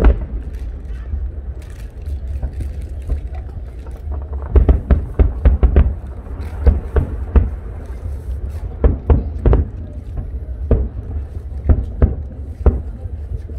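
Aerial fireworks shells bursting in a string of booms: a dense flurry about four to six seconds in, then separate bangs roughly a second apart.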